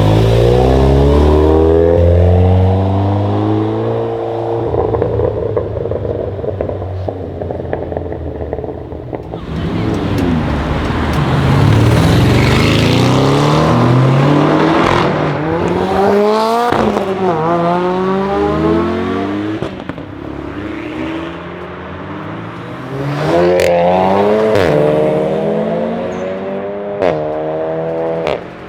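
Seat Leon Cupra ST with a custom exhaust, its turbocharged 2.0-litre four-cylinder accelerating hard several times, the pitch climbing through the revs with each pull. A few sharp cracks come from the exhaust.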